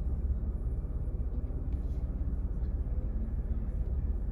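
Steady low rumble of the 2021 Ford Bronco Wildtrak's engine, heard from inside its cab.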